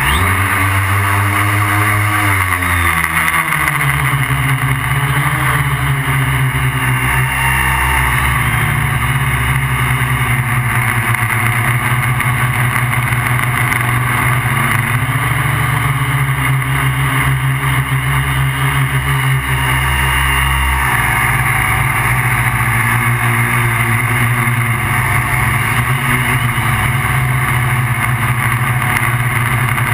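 Electric motors and propellers of a MikroKopter QuadroXL quadcopter, heard close up from on board: a steady buzzing hum whose pitch rises and falls as the motors change speed to hold and steer the aircraft.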